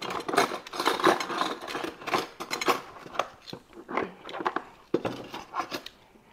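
Close-up eating sounds: chewing spaghetti, with utensils clicking and clinking against a plate in irregular short bursts, and a sharp knock about five seconds in.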